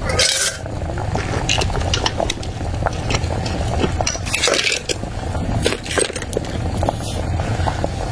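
Scattered light clicks and clinks of dishes and utensils over a steady low rumble.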